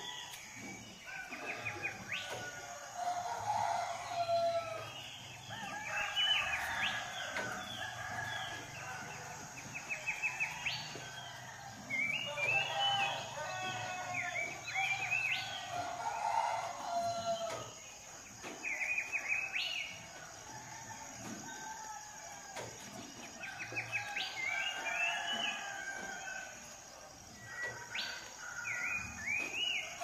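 Roosters crowing several times over a chorus of small songbirds chirping and trilling in quick runs of notes, with a steady high hiss underneath.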